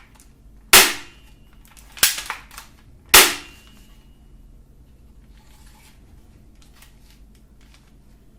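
Toy AK-47's plastic loader (cocking slide) being worked: three sharp clacks about a second apart, each followed by a faint brief spring ring, then quiet handling.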